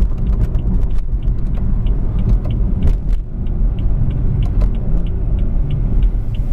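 Steady low engine and road rumble inside the cabin of a 2016 BMW 340i, its B58 turbocharged inline-six running without revving. Faint light ticks repeat about three times a second over it.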